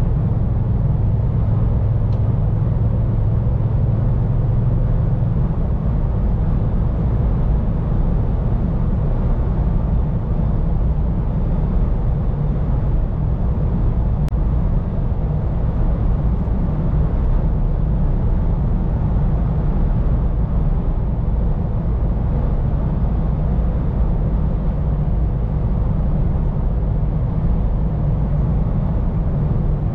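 Scania P410 truck driving on the road: steady engine drone with tyre and road noise. A low hum in the engine note drops away about five seconds in.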